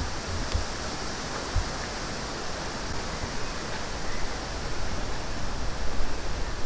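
Steady rushing of wind through woodland, with a few low buffets of wind on the microphone in the first second and a half.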